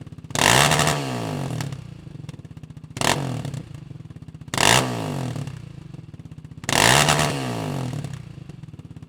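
Yamaha Raptor 700R ATV's single-cylinder four-stroke engine, through a Dominator aftermarket exhaust, idling with four quick throttle blips, each rising in pitch and falling back to idle.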